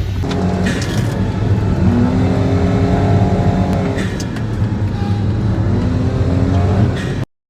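Honda S660 with a CVT driving through a corner, engine and drivetrain running steadily with tones gliding up and down and a few sharp clicks: the unexplained abnormal noise that shows up in this corner, its cause unknown. The sound cuts off suddenly near the end.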